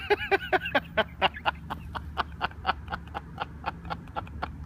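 A man laughing helplessly in rapid pulses, about four a second. The first laughs carry pitch, and after about a second they turn into breathy, wheezing giggles.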